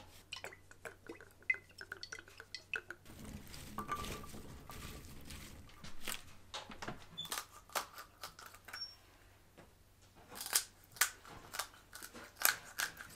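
A metal utensil clinking and scraping against a glass baking dish as chopped root vegetables are tossed. Later come kitchen shears snipping and crunching through raw ptarmigan to spatchcock the birds, with a run of sharp, loud snips near the end.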